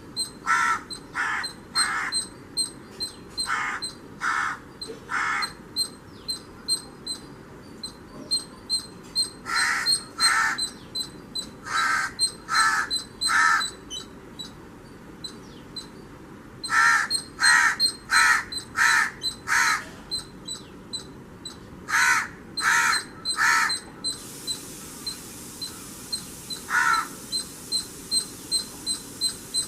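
Crow cawing: short harsh caws in runs of two or three, repeated every few seconds, with a longer run of about six near the middle. A faint, even high-pitched ticking, about three ticks a second, runs behind the calls.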